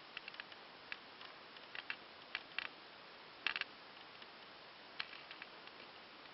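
Faint, irregular small clicks and crackles over a steady hiss. There is a short cluster of louder clicks about three and a half seconds in and a single one at about five seconds.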